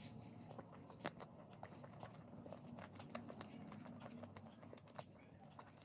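A person chewing and biting food, heard as many small, irregular mouth clicks and smacks, with one sharper click about a second in.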